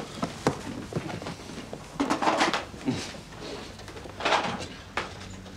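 Handling noises in a small room: a few sharp knocks followed by short rustles and scrapes as objects are picked up and moved.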